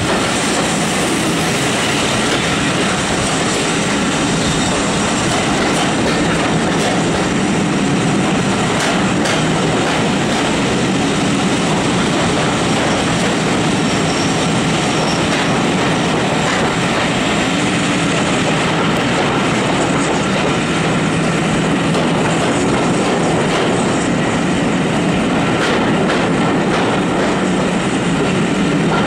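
Heritage passenger train running at speed: carriage wheels rumbling and clattering on the rails as a steady, loud noise. It is heard from an open carriage window, partly through a tunnel.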